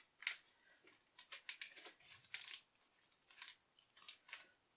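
Snack wrapper crinkling in short, irregular crackles while a treat is got out of it.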